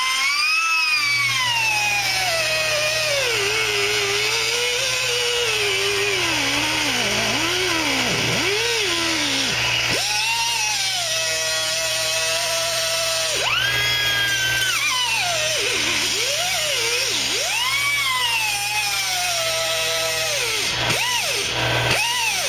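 Handheld cutoff wheel cutting sheet-steel rocker panel: its high whine sags in pitch as the wheel bites into the metal and jumps back up when the load comes off, several times. A steady low hum runs beneath it from about a second in.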